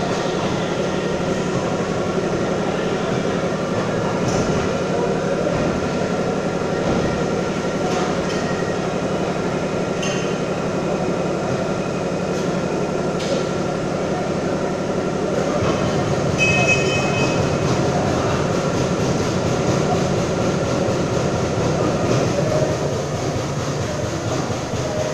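Trumpf CNC punch press running: a steady mechanical hum with a few scattered sharp knocks.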